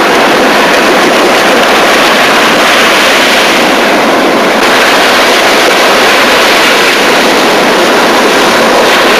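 Ocean surf breaking on a sandy beach: a loud, steady rush of waves and foam.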